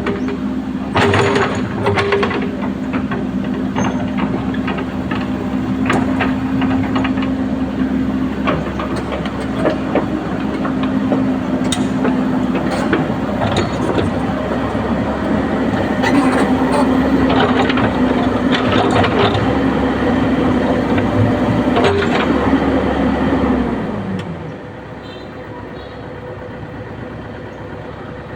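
Komatsu excavator's diesel engine running steadily, with repeated metallic clanks and knocks from the machine working. Near the end the engine note drops and the sound settles to a much quieter steady hum.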